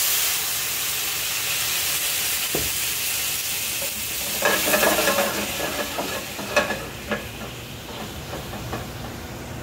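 Prosecco hitting a hot stainless-steel sauté pan with shallots, sizzling and hissing loudly as it deglazes the pan, the sizzle slowly dying down. A few light knocks come in the second half.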